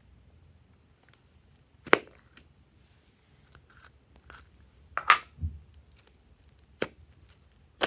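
Purple slime handled out of a plastic slime tub: a few short, sharp crackling pops and clicks separated by quiet, the loudest about two and five seconds in, as the container is opened and the sticky slime is pulled out and torn.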